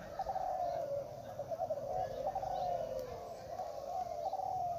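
Many caged derkuku Kelantan (spotted doves) cooing at once, their coos overlapping into a continuous chorus.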